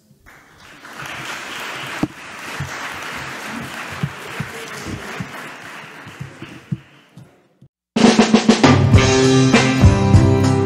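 Audience applauding in a hall, the clapping fading away after about seven seconds. Near the end a loud music track with a drum kit cuts in suddenly.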